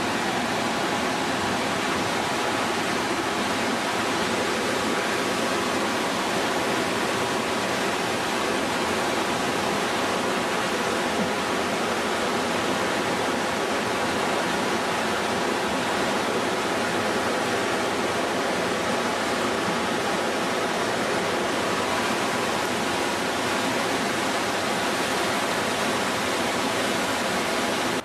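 Loud, steady rush of water, like a waterfall or a river in spate, unchanging throughout. It cuts in and cuts off abruptly.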